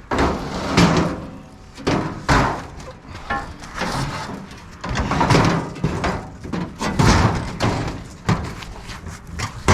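Heavy scrap metal pieces banging and clanking as they are lifted, moved and set down: a series of loud knocks and thuds at irregular intervals.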